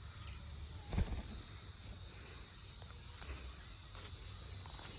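Steady high-pitched chirring of insects, with one short click about a second in.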